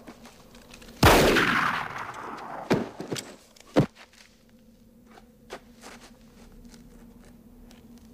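A single loud gunshot about a second in, with a long fading echo, followed by a few shorter, sharp bangs over the next three seconds. After that only faint small clicks remain.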